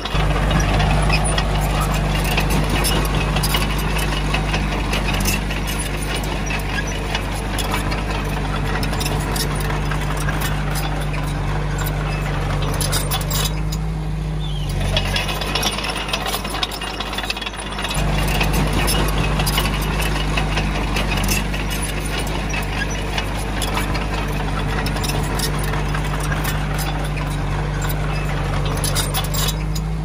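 Komatsu D20A bulldozer's diesel engine running steadily under work, with constant metallic clanking and rattling. The engine sound drops for a few seconds in the middle, then comes back up louder about eighteen seconds in.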